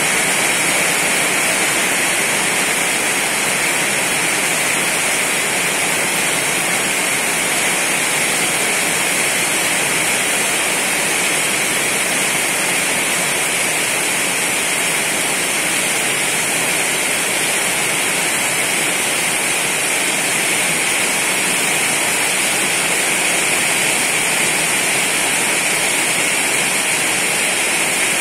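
Heavy rain falling steadily on trees and garden, an unbroken rushing hiss.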